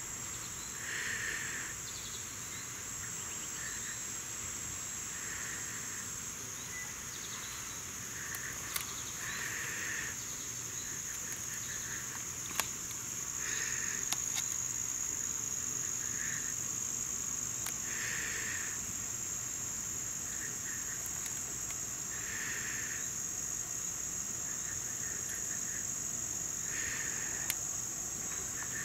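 Insects chirring in a steady high-pitched chorus, with a lower chirping call coming in every two to four seconds.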